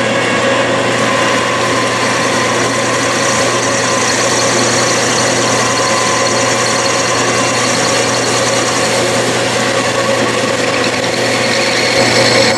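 Metal lathe running steadily with a constant hum while the tool takes a turning cut on an aluminium workpiece.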